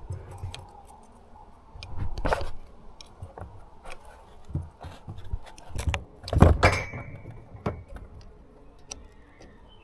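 Small metal carburetor parts and tools clinking and knocking as the carburetor is handled and put back together, with scattered clicks and a few louder knocks about two seconds in and again past six seconds.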